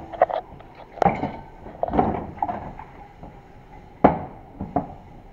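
Steel parts of an opened torque converter from a Mercedes 722.9 automatic transmission clinking and knocking as they are handled by hand inside its shell. There are several sharp knocks, the loudest about four seconds in.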